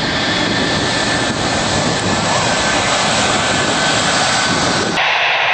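Airbus A321 jet engines running as the airliner rolls past close by: a loud steady rush with a steady whine over it. About five seconds in it cuts off abruptly to a thinner hiss.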